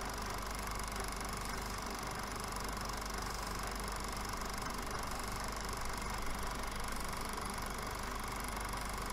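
Steady hiss and hum with a few fixed tones: the noise floor of an aging video transfer of a silent 16mm film, with no recorded sound of its own.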